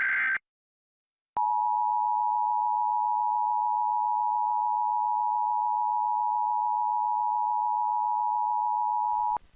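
Emergency Alert System attention signal: a steady two-tone 853 and 960 Hz tone held for about eight seconds, marking a statewide required monthly test. It starts about a second and a half in, after the tail of a digital SAME header data burst, and cuts off with a brief crackle near the end.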